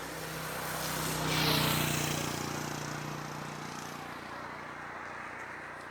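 A motor vehicle's engine passing by with a steady hum. It is loudest about a second and a half in, then fades slowly away.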